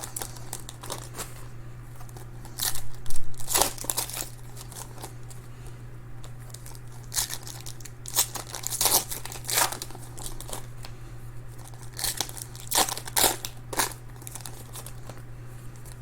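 Foil trading-card pack wrappers being torn open and crinkled, in irregular crackly bursts with short pauses between.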